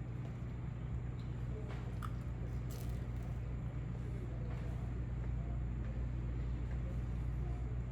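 Faint chewing and biting sounds of someone eating pizza, a few small crunches and clicks, over a steady low hum.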